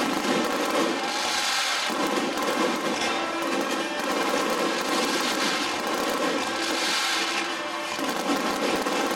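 Aerial fireworks bursting and crackling densely, shell after shell without a break, with music playing underneath.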